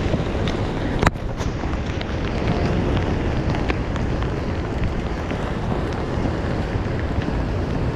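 Wind and rain noise on the microphone, a steady low rumble with scattered light ticks and one sharp click about a second in.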